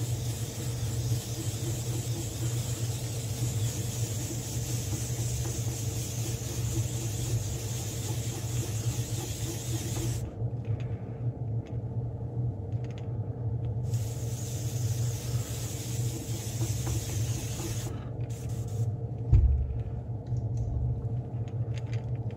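Air compressor running with a steady low hum while an Iwata airbrush sprays paint in two long hissing passes, the first about ten seconds, the second about four. A single low thump comes near the end.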